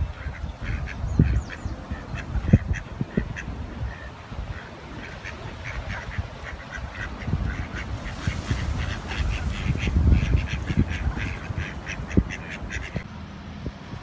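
Mallard ducks quacking: many short calls in quick series, over irregular low rumbling bumps. The calls stop abruptly about a second before the end.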